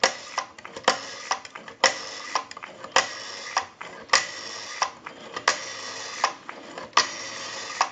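Rotary dial of a Northern Electric Galion desk telephone being dialed digit after digit: each pull of the finger wheel and release is followed by the dial running back with a steady whir, with sharp clicks as it is pulled and as it stops.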